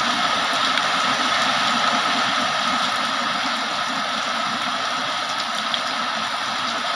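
Heavy rain pouring steadily: a dense, even hiss with a few faint scattered drop ticks.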